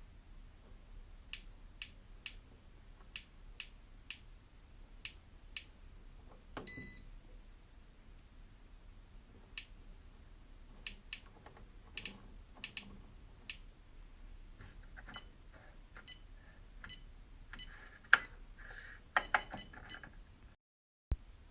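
Electronic controls of a BALMUDA The Range microwave oven being operated: a run of light clicks about every half second, one short electronic beep about seven seconds in, and a busier burst of clicks and short beeps near the end.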